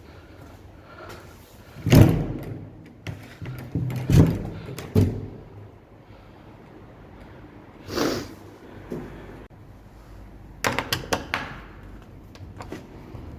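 A series of heavy knocks and bangs about two, four and five seconds in, a short scraping rush about eight seconds in, then a quick run of sharp clicks near the end.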